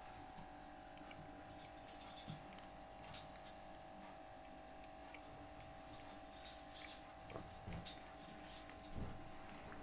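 Faint steady hum, with light clicks and rustles of plastic jars and wrapping being handled, coming in two short spells.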